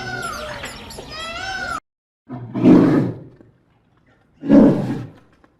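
Two loud, deep roars from a large animal, each about a second long and about two seconds apart, after a short run of repeated arching pitched calls from another animal that stop abruptly.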